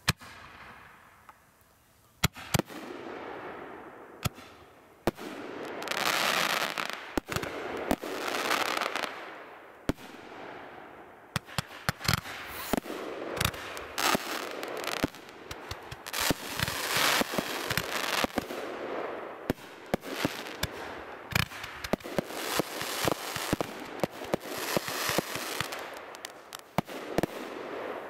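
Aerial fireworks going off: a sharp report at the start, then from about two seconds in a string of loud bangs from bursting shells mixed with hissing and crackling. The bangs come thicker and faster through the second half.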